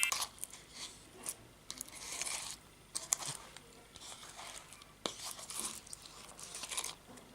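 Scattered small clicks and short crinkling, rustling handling noises, on and off, with a sharper click about five seconds in.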